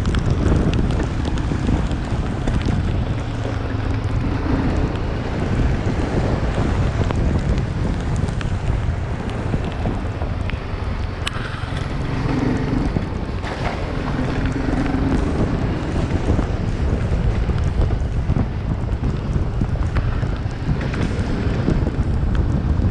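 Wind noise on the microphone: a steady low rush, with a faint hum coming and going now and then.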